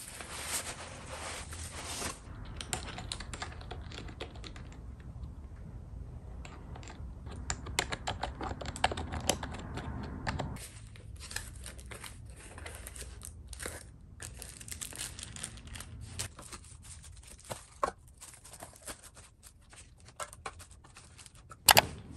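Unboxing sounds: plastic wrap crinkling and cardboard being pulled open and torn, with many light clicks and taps from handling the items, and one sharp knock near the end.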